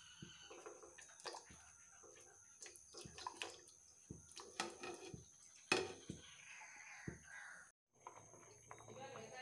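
Diced raw potatoes sliding off a plate and dropping into a steel saucepan of water: a run of small splashes and plops, the loudest about six seconds in.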